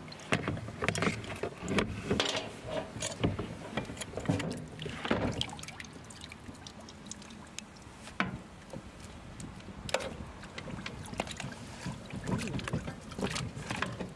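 Water sloshing and splashing in a plastic tub as hot metal press plates holding a pressed plastic sheet are pushed under and moved about to quench them, with many sharp knocks of metal against the tub. In the second half the plates are lifted out and pried apart, giving a few single metal clicks and clanks.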